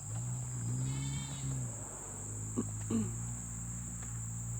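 Crickets and other insects chirring steadily in a high, unbroken drone of late summer, over a low steady hum, with two brief rising sounds in the middle.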